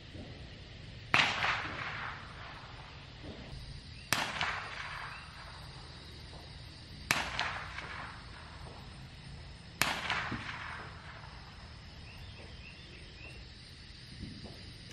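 Four single gunshots, about three seconds apart, each a sharp crack followed by a trailing echo.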